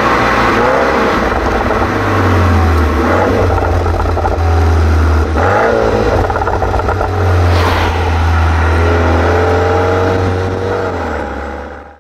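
BMW 428i Gran Coupe's 2.0-litre turbocharged four-cylinder running through an M Performance exhaust, heard at the tailpipes while driving. It makes a deep drone that rises and falls with the throttle, dips briefly about five and a half seconds in, and has a short sharp noise a couple of seconds later. It fades out near the end.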